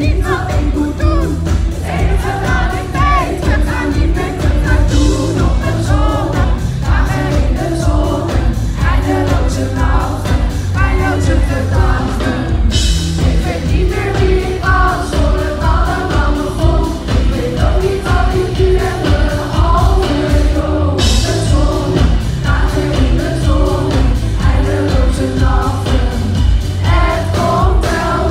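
A live pop band playing: a woman sings lead in Dutch over a steady beat, with drums, guitar and keyboards.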